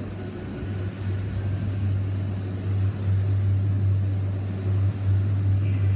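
Air rowing machine's flywheel whirring under steady strokes, a low hum that builds up about a second in and swells and eases every second or two.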